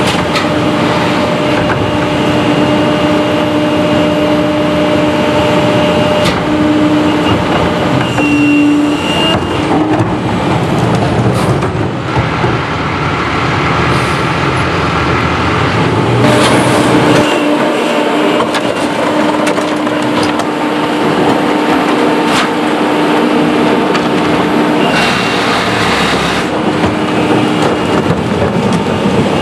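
CCC Pak-Mor rear-loading garbage truck running its hydraulics: the cart tipper emptying a cart and the packer blade cycling, a steady whine over the engine with several metal clanks.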